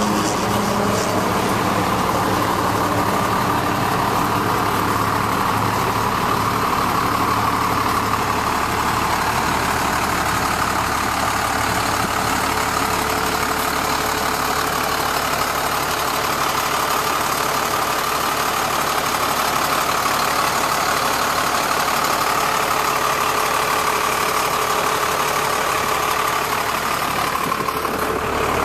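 The truck's Cummins 5.9-litre diesel engine idling steadily, with a steady whine held over the engine note.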